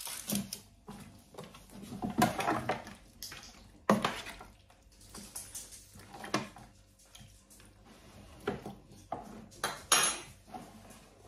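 Metal spoon scraping and clinking against a plastic tub and an air fryer basket as pineapple chunks are spooned in and stirred through chicken: a string of irregular clinks and knocks, some sharper than others.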